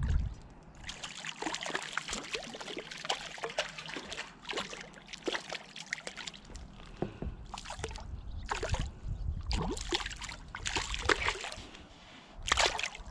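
Hooked trout splashing and thrashing at the water surface, a run of irregular splashes.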